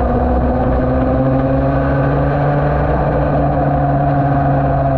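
Yamaha TD1B's 250 cc two-stroke twin engine running hard under way, its pitch climbing gently as the bike drives out through a corner. A low rush of wind runs underneath.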